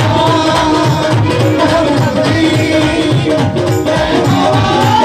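Live Indian folk-style music through a loud stage PA: a singing voice carrying a bending melody over steady hand-struck dholak drum strokes.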